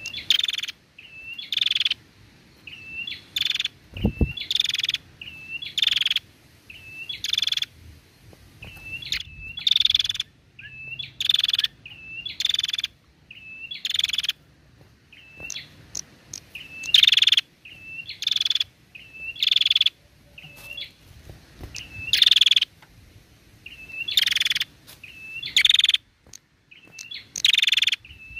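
Female prenjak calling continuously in a loud, rapid series: a sharp, harsh note about once a second, each followed by a softer short hooked chip. There is a single dull thump about four seconds in.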